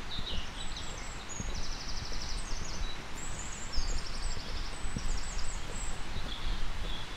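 Small songbirds singing, with short chirps and two rapid trills, over the steady steps of someone walking along the road.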